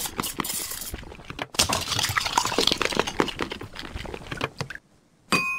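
Title-card sound effects: a busy run of rapid clicks and clinking clatter, then a short gap and a single ringing chime near the end.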